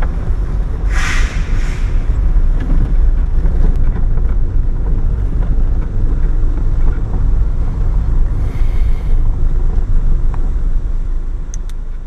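Car moving slowly, a steady low rumble of engine and road noise heard inside the cabin, with short hissing noises about a second in and again about two-thirds of the way through.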